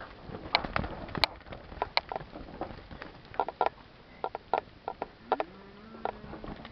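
Irregular sharp knocks and clatter as cattle are worked through a corral of wooden posts and gates. A little past halfway a low, drawn-out call begins, rising in pitch and then holding steady.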